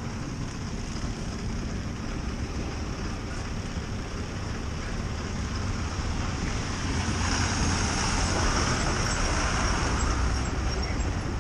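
Road traffic with heavy trucks and a bus passing close, a steady engine rumble that grows louder from about seven seconds in as a truck goes by right alongside.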